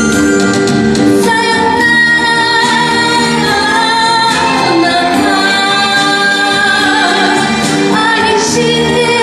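A woman singing a Japanese kayō song into a microphone over instrumental accompaniment, the sung melody moving over sustained backing chords.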